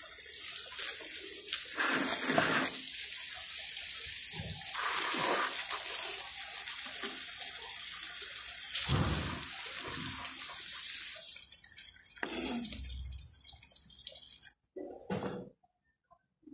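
Water running from a brass tap, with a hiss of spray from a leaky hose joint at the faucet. It eases off past the middle and cuts off near the end, with a few dull knocks along the way.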